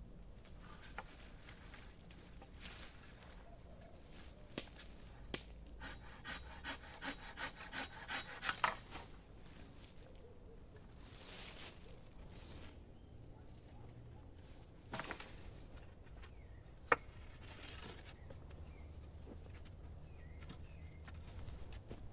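Quiet camp handling sounds: scattered knocks and clicks, with a run of about eight rhythmic scraping strokes that speed up partway through, and one sharp click later on.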